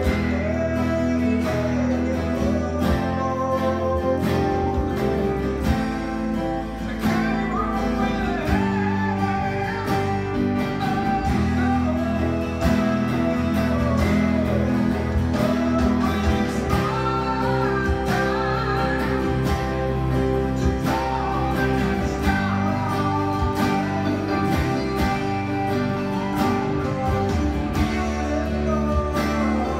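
Stratocaster-style electric guitar strumming chords steadily in a 6/8 feel, with a singing voice over the guitar.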